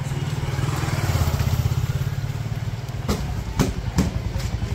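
Motorcycle engine running as it rides past, loudest a little over a second in. Then three sharp knocks, about half a second apart, near the end.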